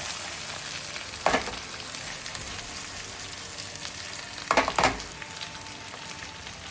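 Marinated chicken legs sizzling steadily as they sear in ghee in a pan on high flame, with a few louder crackles, one about a second in and two close together later on.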